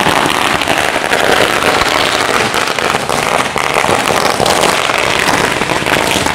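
Firecrackers going off on the road in a rapid, unbroken crackle of sharp bangs.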